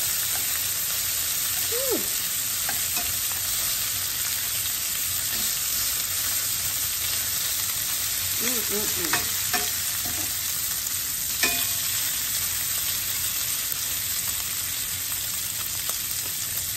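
Bacon strips sizzling steadily in a stainless steel skillet. Metal tongs click a few times against the pan as the strips are turned.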